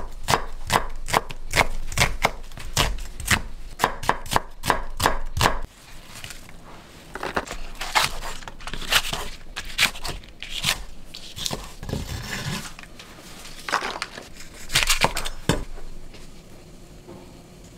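Henckels chef's knife chopping onion on a wooden cutting board: a quick, even run of strikes, about three a second, that stops a little over five seconds in. Then slower, scattered cuts through green onion, quieter near the end.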